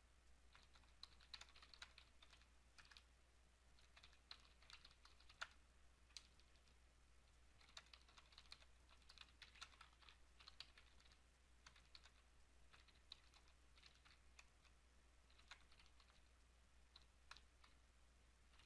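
Faint typing on a computer keyboard: runs of quick keystrokes broken by short pauses, over a low steady hum.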